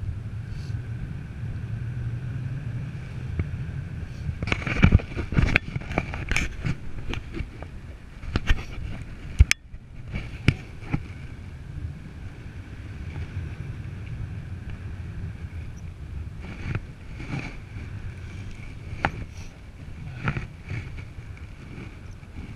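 Wind rushing over the camera microphone in flight under a paraglider: a steady low rumble broken by loud, irregular buffets, clustered from about four to eleven seconds in and again near the end.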